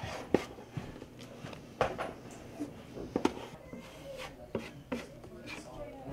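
Irregular knocks and clatters of wooden boards being handled and set down, about half a dozen sharp strikes spread over several seconds.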